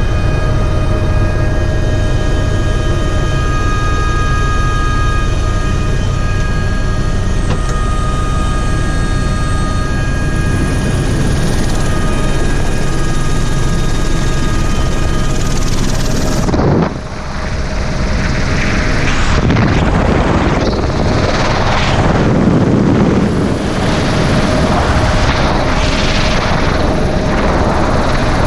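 Helicopter in flight heard from inside the cabin: a steady engine and rotor drone with several high, steady whining tones. About seventeen seconds in the sound changes suddenly to a loud rush of wind and rotor noise, the cabin door open to the slipstream.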